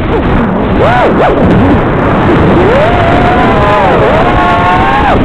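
Racing quadcopter's brushless motors whining, the pitch falling and rising again and again as the throttle is chopped and punched in freestyle flying. There is a long rising whine from about two and a half seconds in, a brief dip near four seconds, and a sharp drop at the end.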